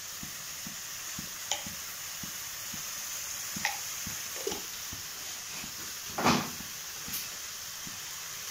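Tomato masala gravy sizzling in a metal kadhai on a low flame, a steady hiss. A slotted metal spatula stirs it, clinking and scraping against the pan a few times, loudest about six seconds in.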